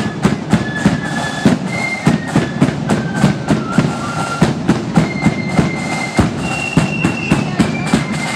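Marching flute band playing: a melody of high flute notes over a steady beat of snare and bass drums.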